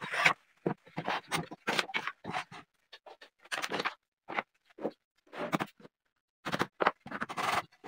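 A string of short, irregular scrapes and knocks from workpieces and tools being handled and set down on a plywood workbench.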